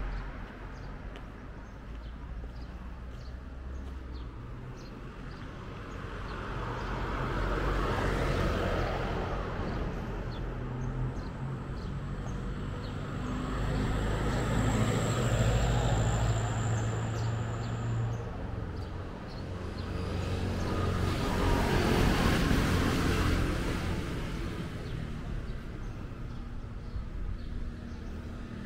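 Road traffic passing close by, vehicles going past one after another over a steady low rumble, with three loud swells as they pass. A thin high whine runs for several seconds in the middle.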